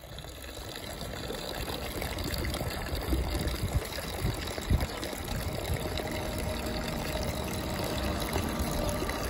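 Water running steadily from a cast-iron street drinking fountain's spout and splashing onto a metal drain grate. A few dull thumps come about three to five seconds in.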